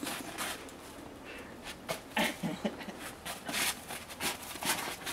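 Snow crunching and scraping as it is scooped up by gloved hands, in a run of short crunches. A few brief, low vocal noises come a little over two seconds in.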